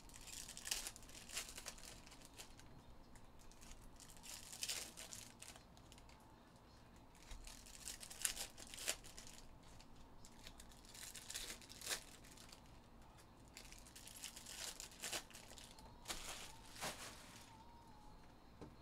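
Foil wrappers of Topps Chrome Jumbo baseball card packs crinkling and tearing as they are opened, in short bursts every two to three seconds.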